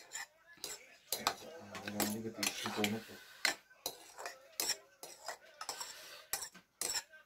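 Metal fork and spoon clinking and scraping against a ceramic bowl as instant noodles are tossed and stirred: a string of irregular sharp clicks.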